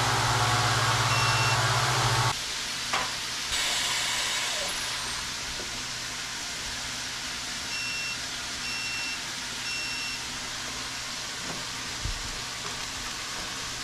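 Chamber vacuum sealer working through the end of a cycle. Its vacuum pump hums loudly for about two seconds and then stops, with a single beep about a second in. Air hisses back into the chamber a little later, and near the end three evenly spaced beeps signal that the cycle is complete.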